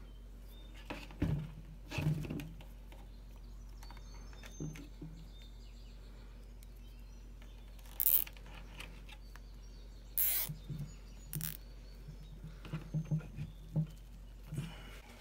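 Hand work on a steering rack: nylon zip ties being threaded and pulled tight around the rubber rack boots, with two short zipping rasps in the middle and a run of small clicks near the end, over a low steady hum.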